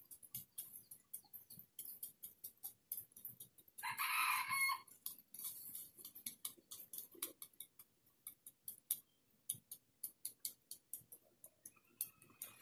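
A rooster crows once, about four seconds in, a call of about a second and the loudest sound here. Under and around it runs a string of short, dry clicks and rustles.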